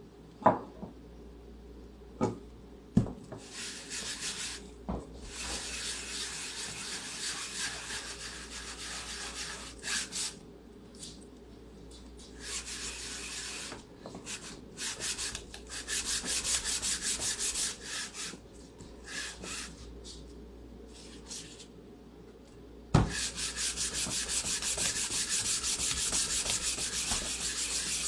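A hand baren rubbed firmly back and forth over the back of a sheet of paper laid on an inked aluminium-foil litho plate, burnishing the ink onto the paper to pull a print: a dry, scratchy rubbing in long stretches with short pauses. A few sharp knocks come in the first three seconds, and another just before the last, unbroken stretch of rubbing.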